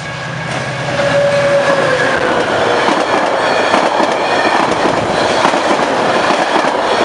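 Metra commuter train passing at speed close by, its bilevel cars rolling over the rail joints in a rapid clickety-clack. It grows louder about a second in as the cars reach the platform.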